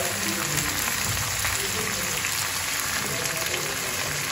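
Sliced onions sizzling in hot oil in a kadai: a steady frying hiss.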